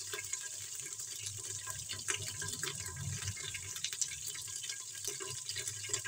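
Cumin seeds, black peppercorns and ground green chili and ginger sizzling in hot ghee in a pressure cooker: a steady hiss with many small crackles and pops.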